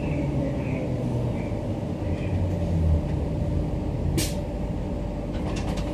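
Queensland Rail electric multiple unit heard from inside a carriage as it slows into a station: a steady low rumble of the running gear and motors, with a short burst of air hiss about four seconds in and a few light clicks near the end.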